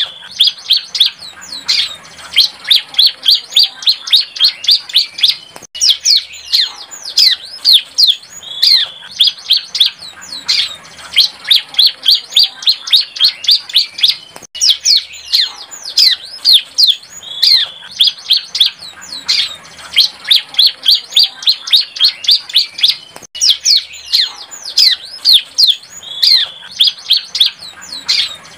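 A young bar-winged prinia (ciblek) singing while still learning its song: a fast run of sharp, high, downward-slurred notes, in bouts of a few seconds with short breaks.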